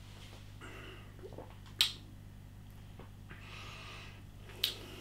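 A man tasting a mouthful of beer: two soft breaths out through the nose and two sharp mouth clicks about three seconds apart, over a steady low hum.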